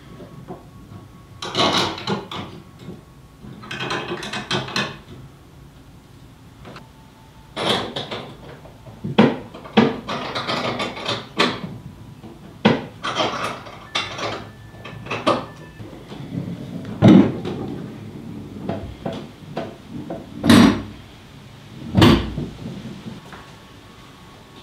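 Hands at work on a canoe hanging on folding steel wall brackets: irregular scraping and rustling, with several sharp knocks in the later part, the last two the loudest.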